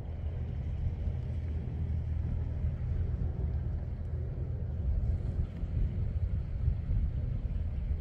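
Wind buffeting the microphone, a low, uneven rumble with a faint hiss above it.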